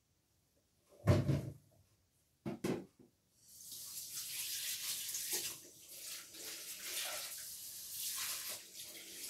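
Two knocks about one and three seconds in, then a kitchen tap runs steadily into a red plastic bowl of mushrooms in a stainless steel sink from about three and a half seconds on.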